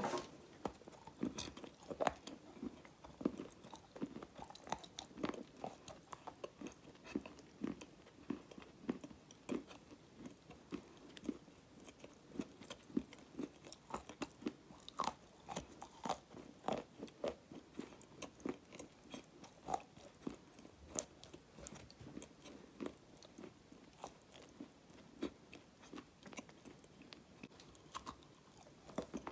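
Close-up mouth sounds of biting off and chewing pieces of a hard, dark grey, flaky chunk: irregular sharp crunches and small crackles, a few each second.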